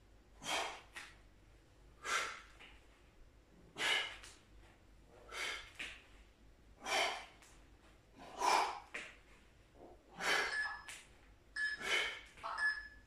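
A man's forceful breaths out under exertion while holding a forearm plank with hip rotations: short, noisy puffs about one every one and a half seconds, coming quicker near the end.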